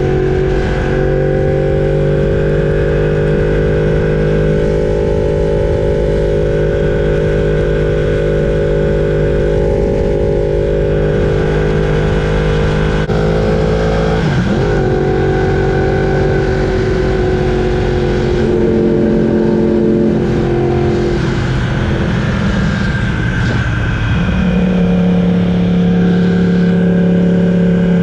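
Yamaha R1's crossplane inline-four engine running at steady revs, its pitch dropping and climbing again about halfway through and settling to a lower, steady note near the end.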